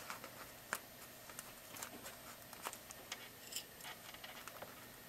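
Faint, scattered little clicks and light rustling as hands handle pins, zipper tape and a plastic snack wrapper while pinning the zipper in place.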